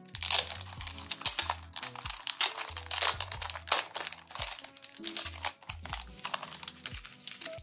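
Clear plastic sleeve crinkling and crackling in a quick irregular flurry as a packaged letter set is handled and pulled out of it, over background music with a low stepping bass line.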